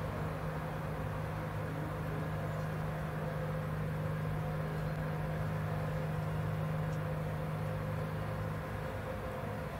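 A steady low machine hum, like a motor running, that eases off a little near the end.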